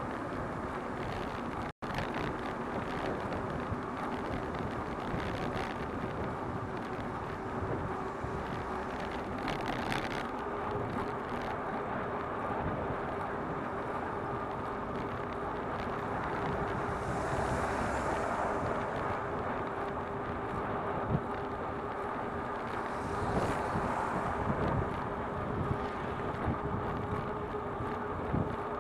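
Steady wind rush and road noise on a bicycle-mounted camera's microphone while riding along a city street, with a faint steady hum under it. The sound cuts out for an instant about two seconds in.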